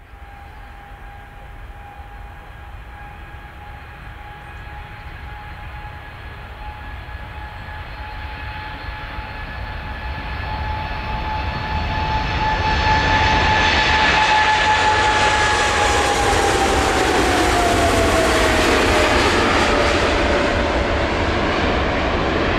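Boeing 747-8's four GEnx turbofans at take-off thrust on the take-off roll: a steady high whine over a jet roar, both growing louder as the jumbo approaches. About two-thirds of the way in the whine drops in pitch as the aircraft passes and lifts off, and the roar stays loud as it climbs away.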